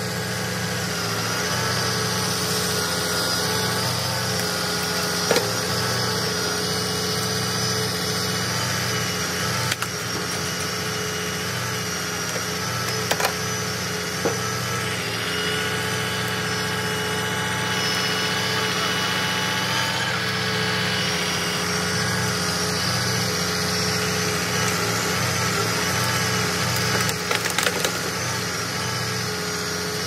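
Knuckleboom grapple truck's engine and hydraulics running steadily, with a constant whine over the engine hum, as the grapple picks up logs and pine branches. A few sharp knocks and cracks of wood come through, twice a second or so apart.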